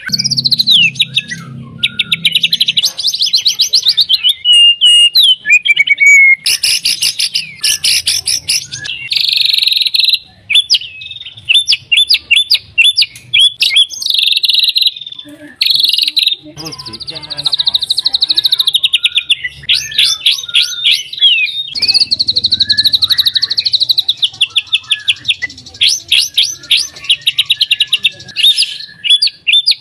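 White-rumped shama (murai batu) singing loudly in full song. Long runs of rapid, sharp repeated notes (the rattling 'kretekan') alternate with whistled trills and slurs, with only brief breaks.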